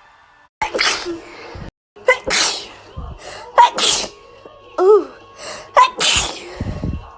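A person sneezing again and again, about five loud, sharp sneezes in a row, one with a voiced rising 'ah' before it, with abrupt cuts to silence between some of them.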